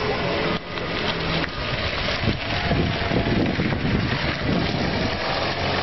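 Wind buffeting and crackling on the microphone, a rough, uneven rumble over the quiet running of a small compressed-air car as it drives across the tarmac.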